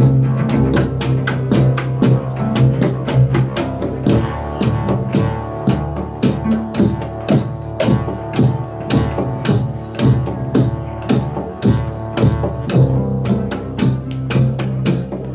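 Two cellos playing live: a held low bass line under a quick beat of sharp percussive strokes.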